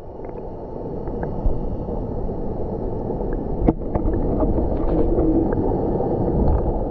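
Pool water heard through a submerged camera: a steady, muffled rush of moving water, with faint ticks and one sharper click a little over halfway through.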